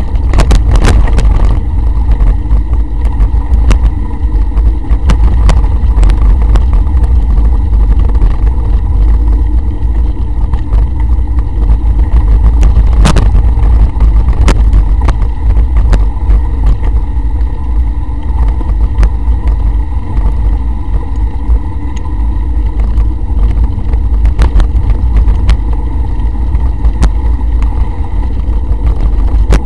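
Mountain bike ridden over a dirt trail, heard through a camera mounted on the rider: a constant low rumble of wind and trail vibration, with scattered clicks and rattles over bumps and one sharp knock about 13 seconds in.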